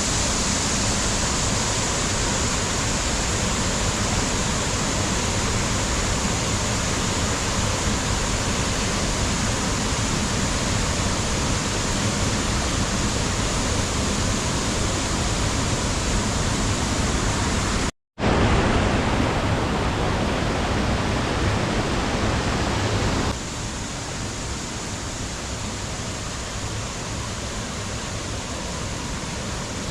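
Waterfall rushing: a steady, even rush of falling water. It cuts out for an instant a little past halfway, then resumes, and becomes somewhat quieter a few seconds later.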